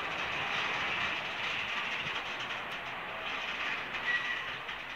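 Container freight train's loaded flat wagons rolling past on the rails: steady rolling noise of steel wheels on track, with a brief high squeal about four seconds in.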